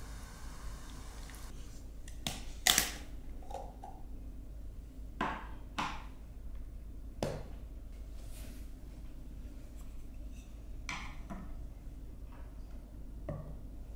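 Plastic jars of marinated crab and shrimp handled on a wooden table: a scattered series of light knocks and clicks as they are picked up and set down, the loudest about three seconds in.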